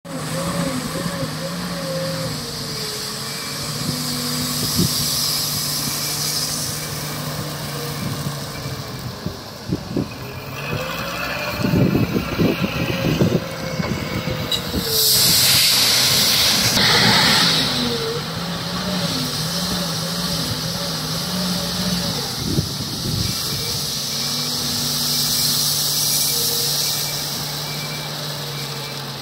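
Tata Hitachi TL340 wheel loader's diesel engine running and revving up and down as it works a gravel pile. There is a stretch of rattling and clattering from about eleven to fourteen seconds in, then a loud hiss lasting about three seconds.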